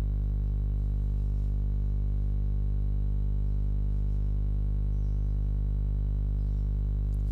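Steady low buzzing hum that does not change.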